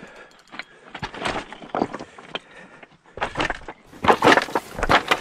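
Irregular scraping and crunching of boots and clothing on shoreline rocks while fighting a fish on a bent spinning rod, growing louder and busier over the last two seconds.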